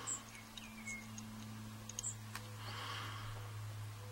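Faint, scattered light clicks of small metal lock pins being handled one by one over a steady low hum.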